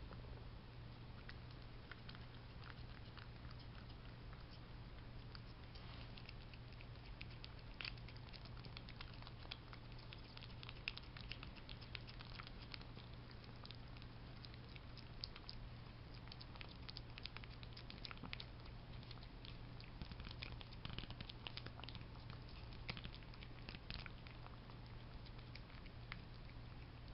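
A cat licking puree cat treat off a plastic treat spoon: a quick, faint run of wet licking clicks, sparse at first and coming thick and fast from about six seconds in.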